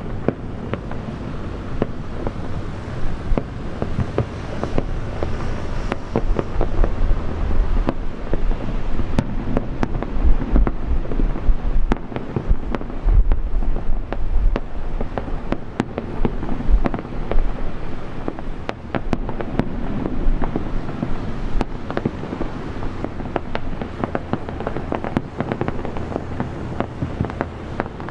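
Aerial fireworks exploding continuously: deep booming shell bursts and dense, irregular crackling. The heaviest booms come in the first half, and the crackling thickens in the second half.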